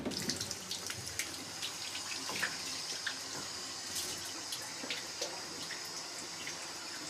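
Water running from a tap, a steady splashing hiss with many small drips and spatters. It starts suddenly.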